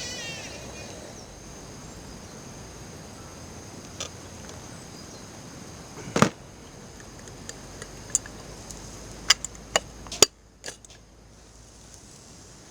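Scattered sharp clicks and knocks, like camp cookware being handled, with one louder knock about six seconds in and a quick run of them near the end, over a steady high-pitched insect chorus that drops out briefly after the last knocks.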